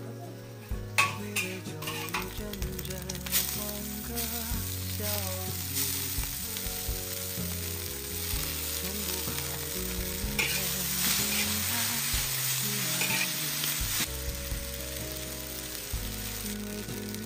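Rice noodles stir-frying in a pan: a steady sizzle, with the spatula stirring and now and then knocking sharply against the pan.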